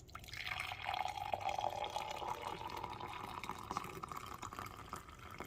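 Boiled elderberry liquid poured through a strainer into a container: a steady pouring trickle whose pitch slowly rises as the container fills.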